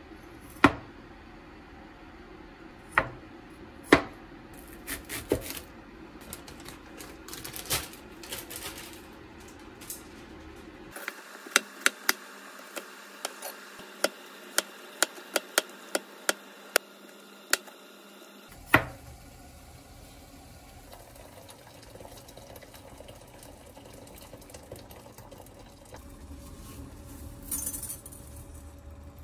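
Chinese cleaver chopping garlic and onion on a plastic cutting board. A few separate knocks come first, then a quick run of chops, then one last loud knock about two-thirds of the way in. After that comes a steady low hiss, with a brief louder rush near the end.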